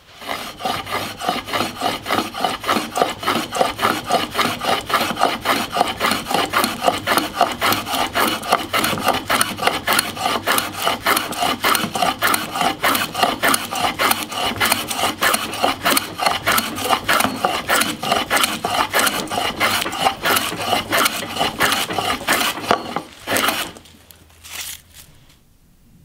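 Stanley block plane cutting along the edge of a pine board in fast, repeated strokes, several a second, each a rasping shear as it takes thick shavings. The strokes stop near the end, followed by a couple of brief knocks.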